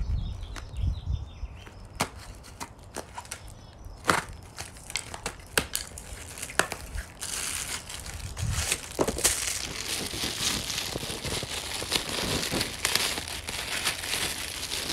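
Cardboard shipping box being pulled open by hand, with scattered clicks and cracks of the flaps and tape. From about seven seconds in, a clear plastic bag crinkles steadily as it is handled.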